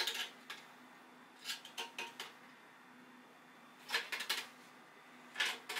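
Hand tool working the end of a sheet-metal dryer duct pipe to shrink it for a fit, making crisp metallic clicks and crunches in about five short clusters.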